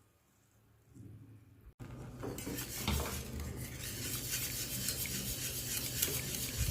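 Near silence for about two seconds, then a utensil stirring and scraping in a saucepan with frequent light clinks, as an orange milk-and-custard-powder pudding mixture heats over a low flame.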